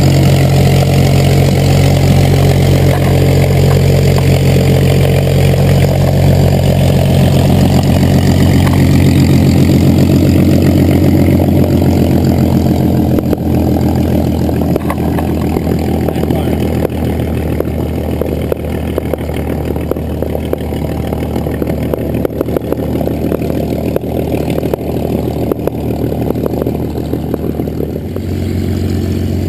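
WWII fighter V-12 piston engines, a Supermarine Spitfire's and a P-51 Mustang's, running at low power as the aircraft taxi on the ramp. The engine sound is loud and steady at first, then grows fainter about halfway through as the aircraft move away.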